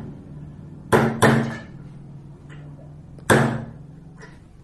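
Hammer striking a steel setting tool driven into a drop-in anchor clamped in a vise, forcing the anchor's cone in so its slotted sleeve expands. Two quick metallic blows about a second in and one more a little after three seconds, each with a short ring.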